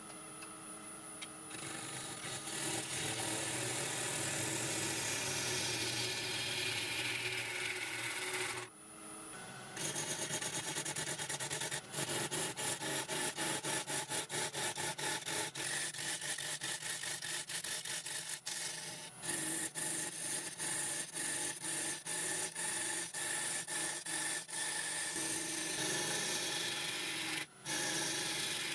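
Wood lathe running with a steady hum while a turning tool cuts into the centre of a spinning spalted ash blank, a scraping, rasping cut. After a short break about nine seconds in, the cutting turns into rapid repeated strokes, several a second.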